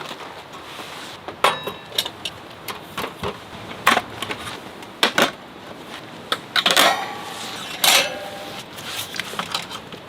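A series of sharp knocks and clicks at irregular intervals, with a brief scrape a little before seven seconds in.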